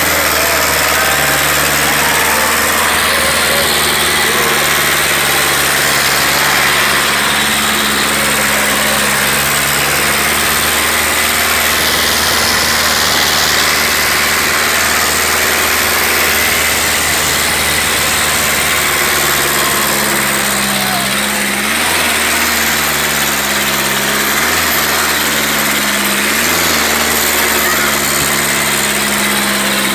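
Sonalika DI 750 III Sikander tractor's diesel engine labouring under heavy load as it drags a weighted sled through sand, with its front wheels lifting. The engine note holds steady, then in the last third it surges up in pitch briefly several times.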